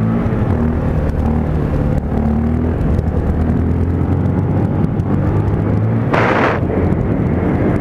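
Motorcycle engine running steadily at low speed, its pitch shifting slightly, with wind rushing over the microphone. A short burst of hissing noise comes about six seconds in.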